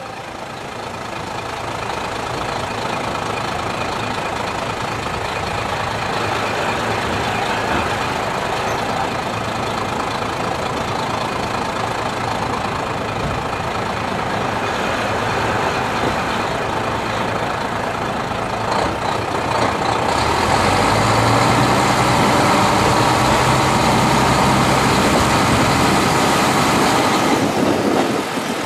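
CR70 diesel railcar running along the track, its engine and wheels heard through an open window as a steady rumble. About twenty seconds in it grows louder with a low engine hum, and eases again near the end.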